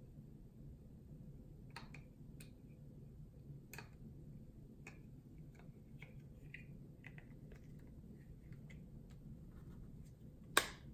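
Faint clicks and taps of hard plastic parts being handled and pressed together, then one loud sharp snap near the end as the plastic handle clips onto the Suncast Aquawinder hose reel's valve body.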